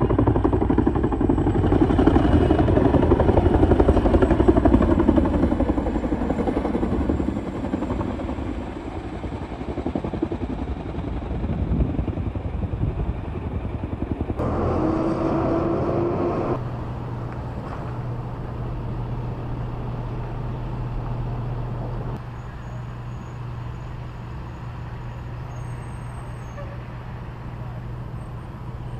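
Helicopter hovering low overhead, a loud rotor and engine sound that slides slightly in pitch and fades after about six seconds. In the last part there is a steady low engine hum.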